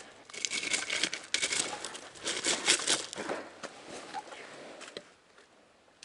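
Footsteps crunching on coarse gravel, a dense irregular crackle that thins out and dies away about five seconds in.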